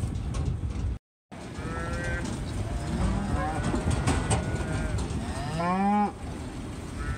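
Black beef cattle mooing: several calls, the loudest a long one about five and a half seconds in that rises in pitch, as the cows and calves call to find each other.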